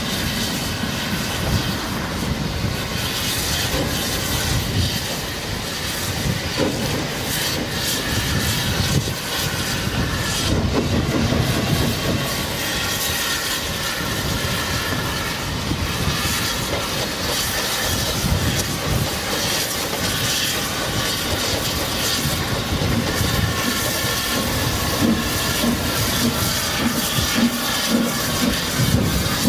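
Narrow-gauge train rolling slowly past, its wheels clicking and clattering over the rail joints in a steady rumble. A regular beat comes in near the end.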